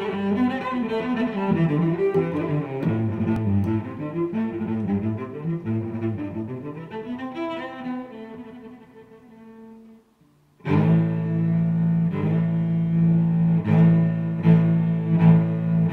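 Background music: one piece fades out about two-thirds of the way through, there is a brief moment of silence, and another piece with long held notes starts.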